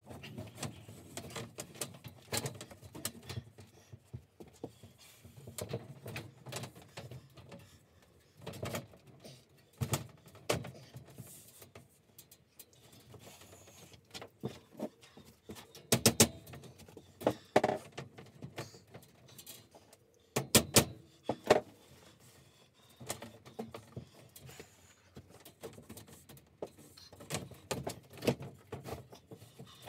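Irregular knocks, taps and rattles as wooden shelf boards are fitted into a black steel boltless workbench frame, with the sharpest knocks about halfway through and again about two-thirds of the way in.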